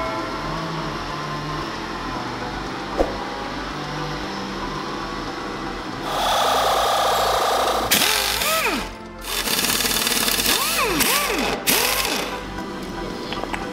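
Background music, then from about six seconds in a pneumatic impact wrench running in loud bursts on a chassis bolt, with a short break about three seconds later.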